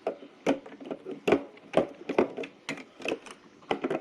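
Irregular hard plastic clicks and knocks as a brush roll is fitted back into the underside of a Shark robot vacuum.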